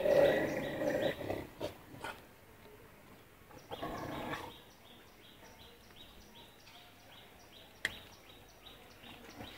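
A stray dog vocalizing in two short bursts, one during the first second and another around four seconds in, with a single sharp click shortly before the end.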